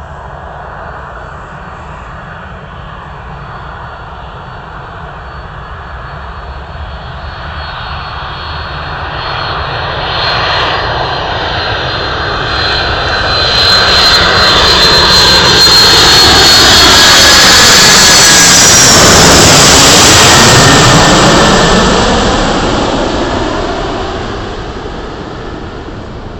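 Jet airliner on landing approach passing low overhead. Its engine noise and high whine build for about fifteen seconds, peak, then drop in pitch as it goes by and fade away.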